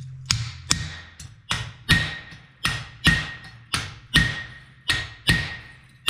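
Hand hammer striking steel on an anvil in a steady rhythm, about two blows a second, each blow followed by the anvil's ringing.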